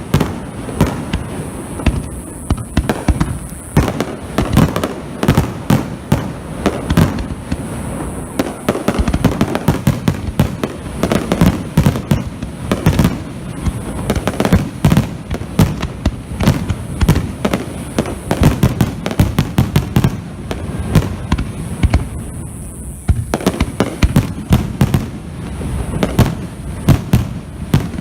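Fireworks display: a dense, continuous barrage of shell bursts, many loud bangs a second, easing briefly about twenty-two seconds in.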